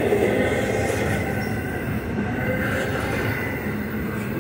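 Intermodal freight cars carrying highway trailers rolling past at close range: a steady rumble of steel wheels on rail, with a faint thin high squeal from the wheels above it.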